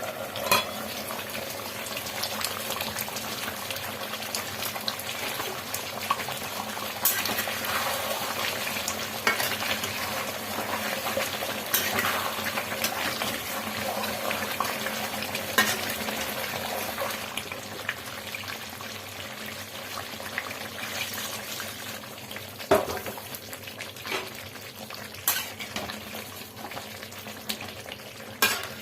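Chicken curry sizzling in a pan as it is stirred, with a spoon knocking and scraping against the pan every few seconds.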